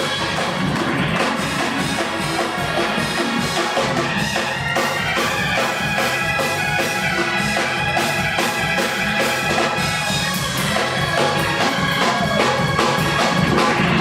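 Gospel music with organ and drums playing a steady beat.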